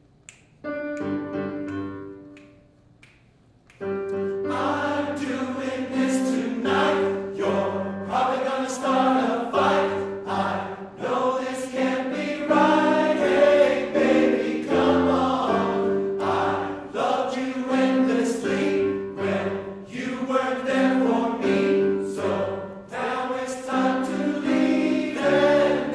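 Men's chorus singing in harmony: a short, quiet phrase about a second in, a brief pause, then full sustained choral singing with held chords from about four seconds on.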